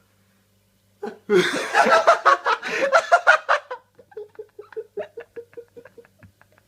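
A man bursting into loud laughter about a second in while holding back a sneeze, then trailing off into quick, short chuckles.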